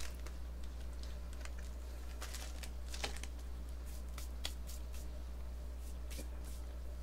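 A steady low hum, with a handful of faint, scattered clicks and crackles.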